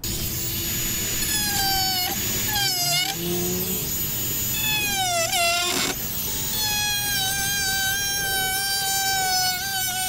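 Dremel rotary tool running with a high whine. Its pitch dips several times as the bit bites into and cuts the edge of a rubber floor mat, then it runs steadily for the last few seconds.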